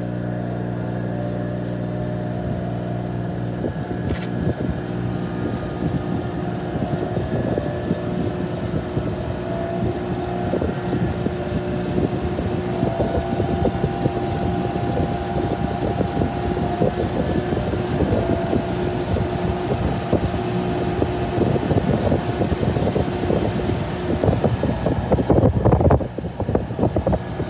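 Treadmill motor driving an evaporative cooler's blower through a V-belt, running at under half its speed setting: a steady hum with the blower's air rush. From about ten seconds in, a growing clatter of irregular ticks and rattles joins it, busiest near the end.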